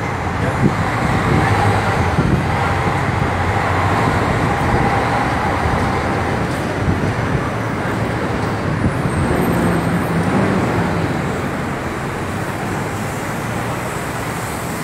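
Street traffic and bus engine noise heard from the open top deck of a moving sightseeing bus: a steady rumble, a little louder in the first few seconds.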